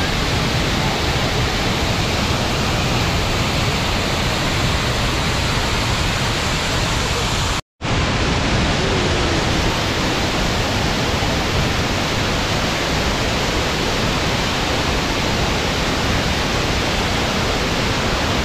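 Waterfall rushing: a steady, loud wash of falling water, which drops out for a split second about eight seconds in.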